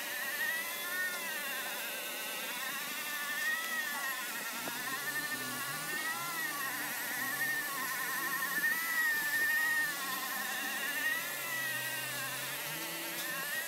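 Electronic background music: a wavering synth tone, joined about four and a half seconds in by a stepped bass line.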